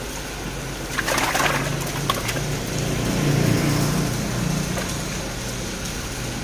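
Water splashing as catfish and water are handled in mesh grading nets over a drum, with a sharp splash about a second in and a click shortly after, over steady running water. A low uneven murmur rises near the middle.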